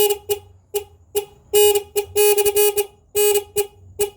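A 14-tone electronic horn board playing its pattern number 11: one steady, bright horn tone sounded in about eight short and longer blasts in a stuttering, uneven rhythm.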